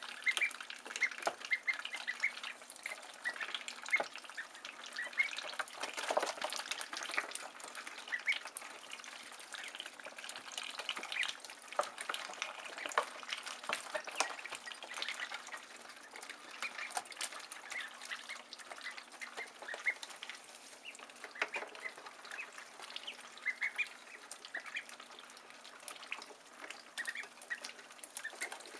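A brood of ducklings peeping constantly in short high chirps while they feed on greens, with frequent sharp clicks and taps from their bills.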